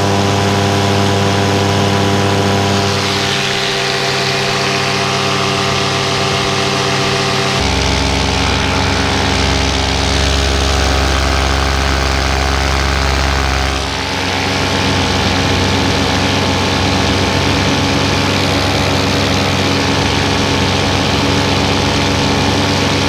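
Parajet Maverick paramotor's two-stroke engine and propeller running steadily in flight, heard from the pilot's seat. Its drone drops to a lower pitch about eight seconds in and comes back up about fourteen seconds in.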